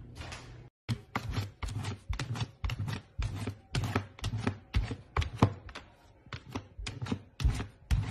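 A golden retriever puppy's paws knocking and slapping at a plastic container of dog kibble over and over, sharp knocks about three a second starting about a second in.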